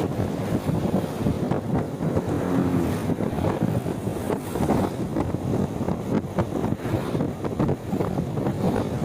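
Wind buffeting the microphone and traffic noise from riding, a loud rumbling rush that drowns out the rider's voice.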